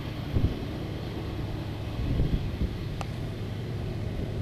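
Diesel locomotives working under power as they haul a long empty ore train up a steep grade, heard from a distance as a steady low rumble. Gusts of wind buffet the microphone.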